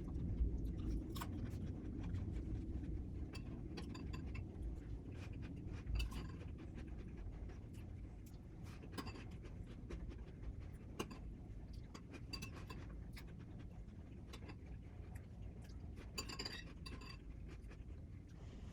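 Close-up chewing of extra-crispy bacon: irregular crunches and mouth clicks over a low rumble.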